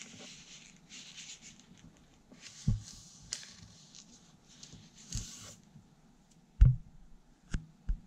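Origami paper rustling and sliding on a table as it is folded, broken by a few soft thumps of hands pressing the folds flat. The sharpest thump comes a little before the end.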